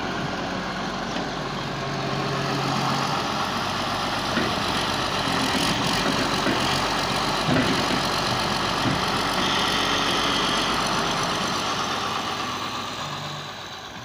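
Diesel engine of a Hyundai wheeled excavator running steadily as it digs sand and loads a tractor trolley, fading out near the end.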